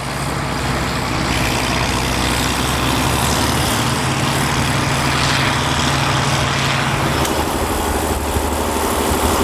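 1974 John Deere 7520's turbocharged, intercooled 8.7-litre (531) six-cylinder diesel running steadily, its note changing about seven seconds in.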